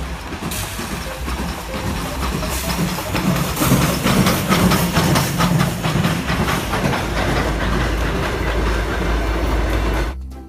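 Steam locomotive hauling passenger coaches past, with steam hissing and wheels clacking over the rail joints, loudest in the middle as it goes by; the sound cuts off suddenly near the end.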